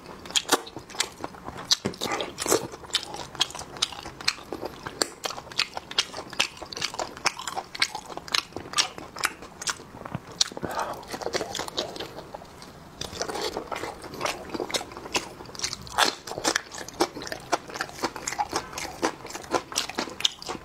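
Close-miked eating of sheep blood sausage in chili and herb dressing: biting and chewing as a dense, irregular run of short sharp clicks and mouth sounds, picked up by a clip-on microphone.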